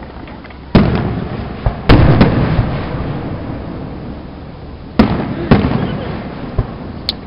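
Fireworks going off: about six sharp bangs, a cluster in the first two seconds, another pair around five seconds in and a smaller one near the end, each trailing off in a fading rumble.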